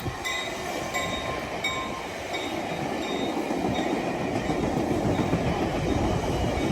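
ACE commuter train's Bombardier bilevel cab car and coaches rolling past, a steady rumble of wheels on rail with some clickety-clack, growing slightly louder. A few faint, brief high tones sound in the first two seconds.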